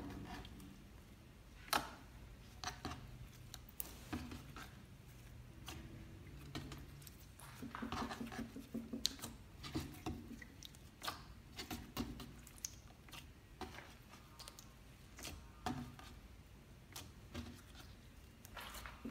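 Clear slime being pressed and squished by hand on a tabletop, giving short irregular clicks, the sharpest a little under two seconds in and about nine seconds in.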